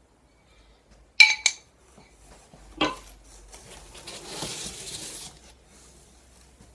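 Aluminium machine plates clinking together with a short metallic ring about a second in, then a single knock. After that comes a soft scraping rustle as a polystyrene foam insert is lifted out of the cardboard box.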